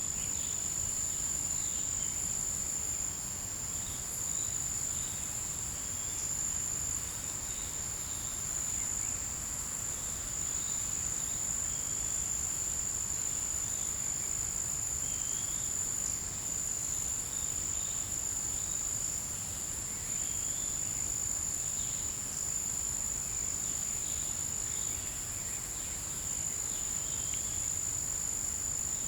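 Forest insect chorus: a steady, unbroken high-pitched trill, with scattered faint short chirps beneath it.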